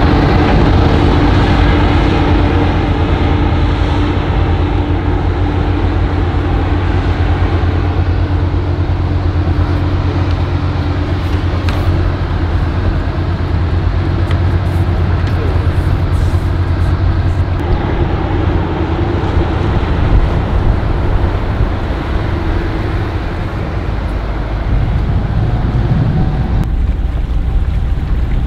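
Sailing catamaran's diesel engine running steadily under way: a continuous low hum that holds an even pitch, with a slight change in tone about two-thirds of the way through.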